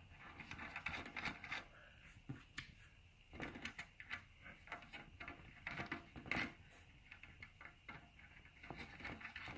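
Faint, scattered small clicks and taps of metal nuts being threaded by hand onto the screws inside a wooden snare drum shell, with one sharper click about six seconds in.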